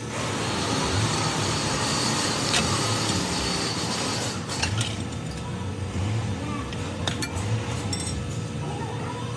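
A few light metallic clinks over a steady low rumble.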